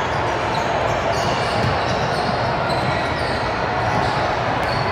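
Basketball game in a gym: the ball bouncing, sneakers squeaking in short high chirps, and a steady murmur of voices.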